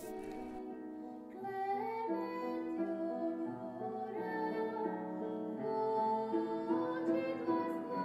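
Slow accompaniment music for a stage dance, with female voices singing long held notes that move in steps over a layered sustained backing. It grows louder about a second and a half in.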